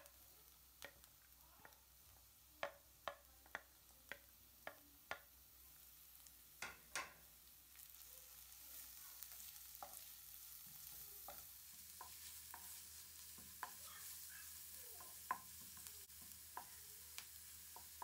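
A spatula taps and scrapes grated carrot and green bell pepper off a plate into a frying pan, about a dozen sharp clicks. From about eight seconds in a faint sizzle starts as the onions, carrot and pepper fry in a little oil, with occasional light knocks of the wooden spatula stirring the pan.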